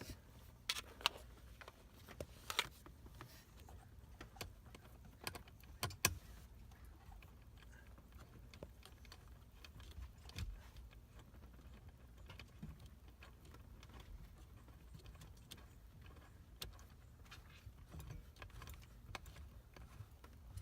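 Faint, irregular metallic clicks and taps of a hand tool working the Torx bolts behind a BMW E36 M3's steering-wheel airbag, busiest in the first few seconds, over a low steady hum.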